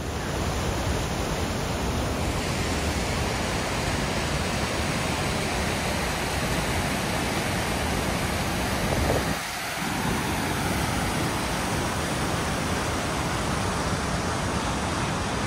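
Rushing mountain stream: a steady, even roar of water over rocks that dips briefly a little past halfway.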